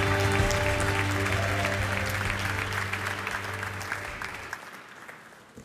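A theatre audience applauding over music with long held notes; the music and the clapping both fade away over the last two seconds.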